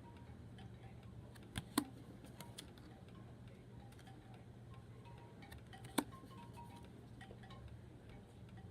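Tarot cards being handled and laid out, giving a few light clicks and taps, the sharpest about six seconds in, over a faint steady hum.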